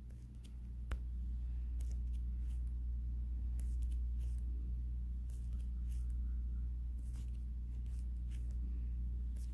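A steady low electrical-sounding hum, with scattered small clicks, scrapes and rustles of something being handled close by.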